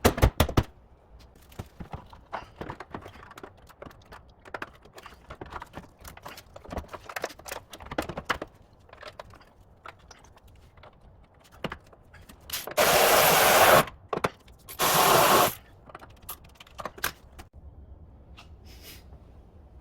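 Workshop sounds of hand tools and metal parts clinking, tapping and scraping, with two loud hissing bursts of about a second each a little past the middle.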